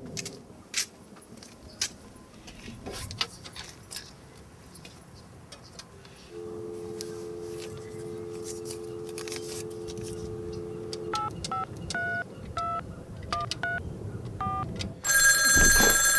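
Telephone call being placed: a steady dial tone, then a quick string of about ten touch-tone keypad beeps as a number is dialed, then a telephone ringing loudly near the end. A few scattered clicks come before the dial tone.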